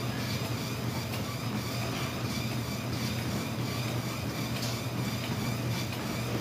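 Treadmill running: a steady motor and belt hum, with the user's footfalls landing on the moving deck.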